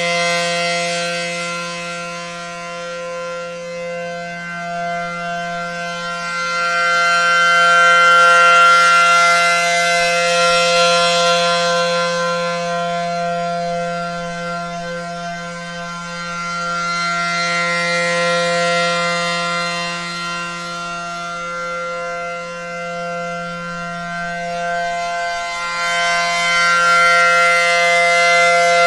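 ACA Allertor-125 15 HP rotating electromechanical warning siren sounding a steady alert signal. It holds one constant, several-toned pitch while its loudness swells and fades as the horn rotates, loudest about a third of the way in and again near the end.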